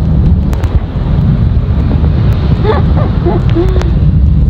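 Wind buffeting the microphone, a loud steady low rumble, with faint voices briefly in the middle.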